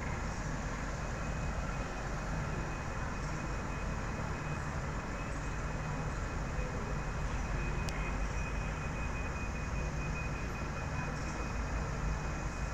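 VLocity diesel multiple-unit train idling at the platform: a steady low diesel engine hum with a thin, constant high whine. A single sharp click about eight seconds in.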